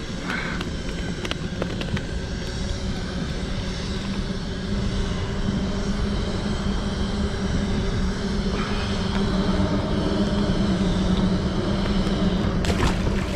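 A steady, low engine drone that grows louder after about five seconds, with a few light clicks early on.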